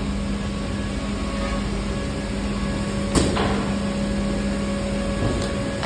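Furniture workshop din: a steady machine hum over a noisy background, with one sharp knock about three seconds in and a fainter one near the end.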